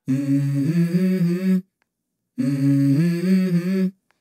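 Background music: a low hummed vocal phrase, stepping up in pitch partway through, heard twice with a short break between.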